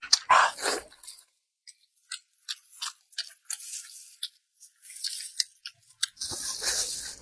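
A person eating close to the microphone: wet chewing with many short mouth clicks and smacks. There is a louder burst just after the start and a longer noisy stretch near the end.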